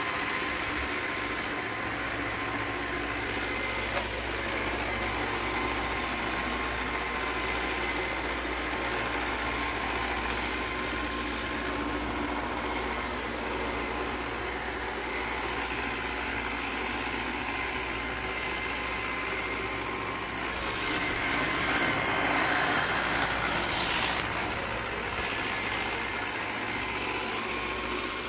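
iRobot Roomba 694 robot vacuum running on carpet with a steady, whining grinding noise from its brushes, a little louder from about 21 to 24 seconds in. The owner hears it only on carpet and does not know its cause.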